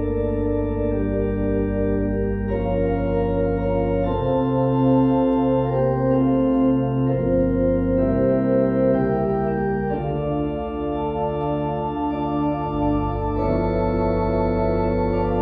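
Organ playing slow, sustained chords over low bass notes, the chords changing every second or two.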